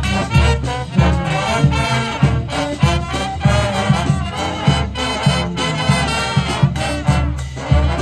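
High school brass band playing an upbeat, swinging tune: trumpets and trombones over a pulsing bass line with a steady beat.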